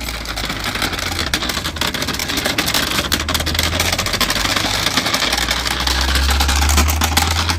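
A car driving: steady engine and road noise heard from inside the car, with a low drone that swells near the end.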